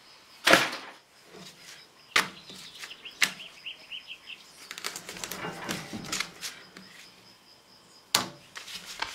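Fillet knife and hands working a bass fillet on butcher paper over a wooden table: a few sharp knocks, the loudest about half a second in, and paper rustling as the fillet is trimmed. Small birds chirp faintly.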